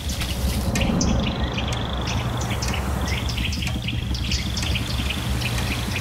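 Birds chirping in repeated rapid trills, over the steady low rush of a waterfall.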